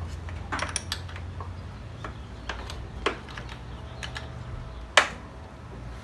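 Small metallic clicks and clinks of a battery terminal bolt and the charger lead's ring connector being fitted by hand on a riding mower's 12-volt battery, with one sharp click about five seconds in. A low steady hum runs underneath.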